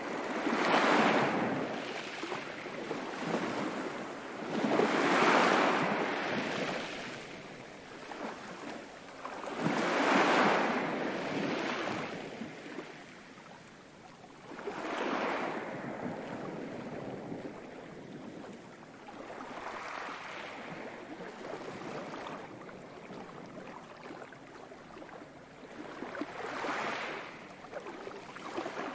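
Ocean waves breaking and washing in, a swell rising and fading about every five seconds, the later ones weaker.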